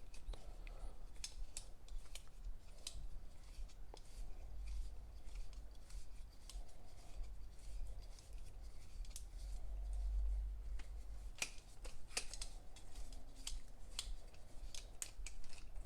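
Plastic phone mount being twisted onto a selfie-stick tripod: a run of small, irregular, sharp clicks and handling rubs.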